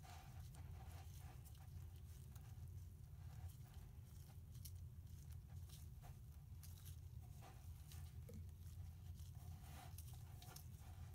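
Faint crackling and crumbling of kinetic sand as gloved hands squeeze it and break it apart, many small irregular crackles over a steady low hum.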